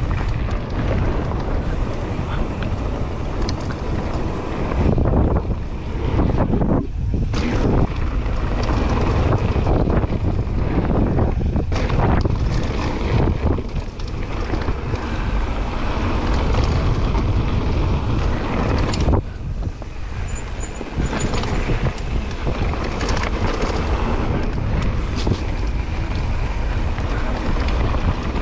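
Wind buffeting an action camera's microphone on a fast mountain-bike descent, mixed with the tyres rolling over a dirt trail and the bike's knocks and rattles over bumps.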